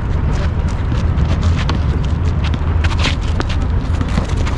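Players' footsteps and a basketball bouncing on an outdoor asphalt court: scattered irregular knocks and scuffs over a steady low rumble.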